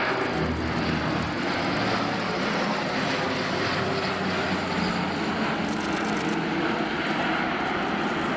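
Airbus A400M's four TP400-D6 turboprop engines and eight-bladed propellers droning steadily as the aircraft flies past. Low humming tones run under the drone and drop in pitch about half a second in.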